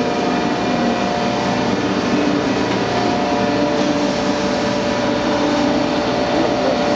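A 1971 Mattison 20 x 72 heavy-duty hydraulic reciprocating surface grinder running: a loud, steady machine hum with several held tones.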